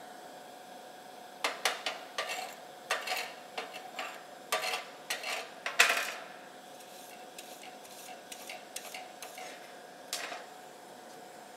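Slag breaking away from a freshly made gas-shielded flux-cored (E71T-1C/1M) weld bead on steel plate: a run of sharp metallic clicks and ticks, densest and loudest in the first half, then sparser lighter ticks. The slag comes off easily, as is typical of this wire.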